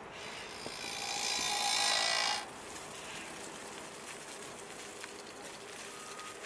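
Wood chips pouring off the rear of a chain-conveyor trailer onto a pile as the conveyor floor runs, a steady rushing sound. A rising hiss builds over the first two seconds and cuts off suddenly.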